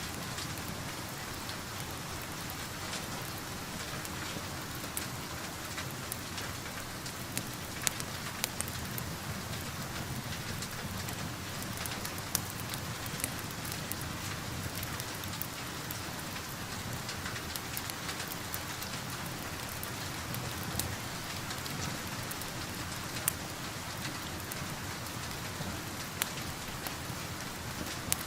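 Steady rain falling on a surface, mixed with a crackling wood fire that gives scattered sharp pops every few seconds.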